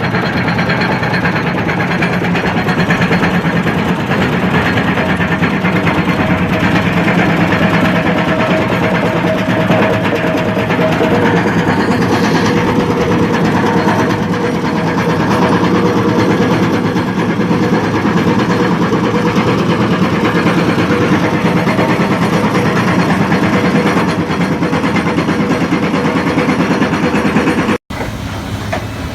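Heavy machine running hard with a hydraulic bucket crusher attachment working: a loud, steady, dense mechanical clatter from the engine and the crusher's jaw. Near the end it cuts abruptly to a quieter, steady engine running.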